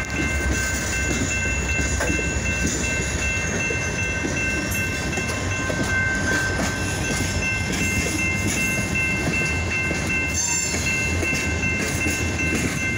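Freight train's open-top cars rolling past at close range: a steady rumble of wheels on rail, with a faint steady high-pitched ringing held over it.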